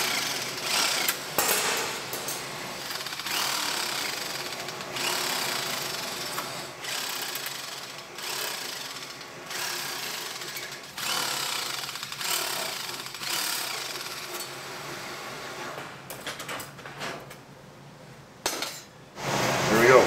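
Handheld power shear chattering through sheet metal, cutting out a fender patch panel in short runs that stop and start every second or two, and falling quiet near the end.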